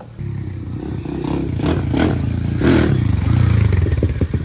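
Outboard boat motor running and being revved, louder around the middle, settling into an evenly pulsing run near the end.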